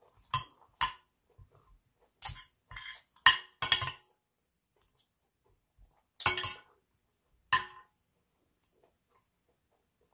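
A stainless spoon and knife clinking and scraping against a ceramic plate while food is cut and scooped: about eight sharp, scattered clinks, with a pause in the middle.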